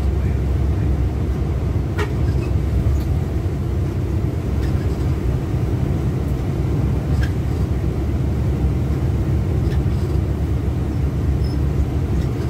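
Inside a moving bus: a steady low rumble of engine and road noise, with a few faint clicks and rattles, the sharpest about two seconds in.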